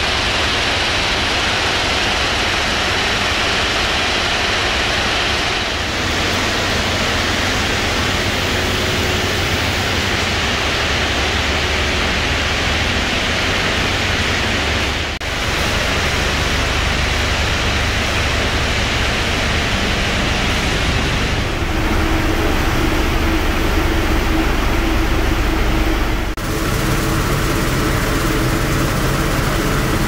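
Auto shredder residue processing line running: a loud, steady industrial machine noise from the conveyors, separators and air-handling equipment. Its character changes abruptly several times, and a steady hum joins in for the last few seconds.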